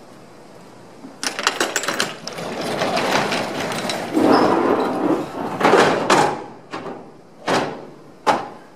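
A box truck's roll-up rear door is unlatched with a quick rattle and rolled up with a long metal rattling rush. Then an aluminium loading ramp slides out from under the truck bed and is set down, with sharp metal clanks near the end.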